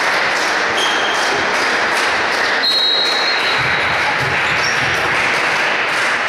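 Sports hall ambience: a steady noisy hiss fills the hall, with a few short high squeaks of shoes on the wooden court, about a second in, around three seconds and near the end.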